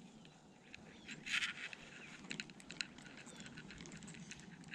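Faint outdoor ambience with light rustling and scattered small clicks, and a brief louder rustle about a second in.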